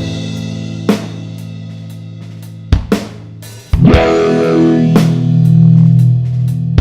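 Electric guitar played through a SubDecay Vocawah vowel-shift filter pedal and a Marshall JCM 900 amp, with a drum kit. A held chord fades over the first few seconds under a few drum hits, then a louder chord comes in about four seconds in, its tone shifting as the filter moves.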